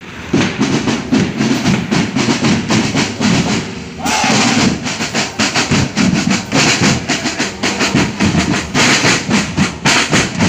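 Marching band drumline of snare and bass drums playing a fast cadence of rapid, repeated strikes, with a short dip about four seconds in.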